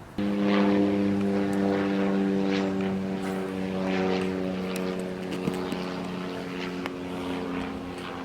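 A steady low engine drone that starts abruptly and then slowly sinks a little in pitch and fades.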